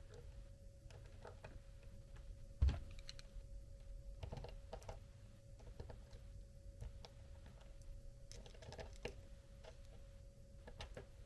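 Irregular small clicks and taps as the parts of an RC4WD mini beadlock wheel are handled and turned against each other to line up the screw holes. One sharper knock comes about two and a half seconds in.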